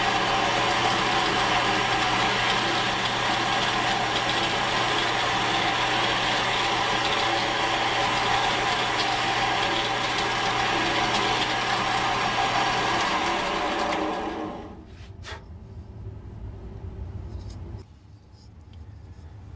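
Benchtop drill press running steadily as a Forstner bit counterbores a carved wooden decoy head. The machine sound drops away about 14 seconds in, followed by a few light clicks and quieter handling.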